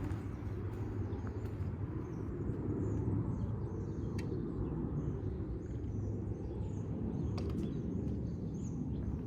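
Outdoor ambience: a steady, low rumble with a few faint clicks and faint high chirps like distant birds.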